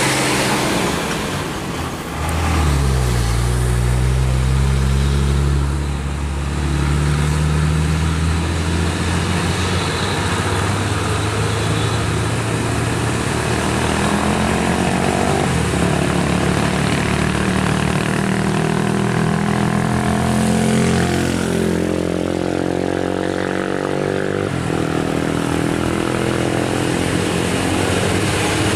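Heavy truck's diesel engine running under load. Its pitch drops about two seconds in, holds, then rises and falls again in the second half.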